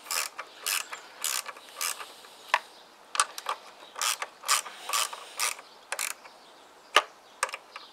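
Socket ratchet wrench clicking in short strokes, about two a second, as bolts are tightened. One sharp knock about seven seconds in.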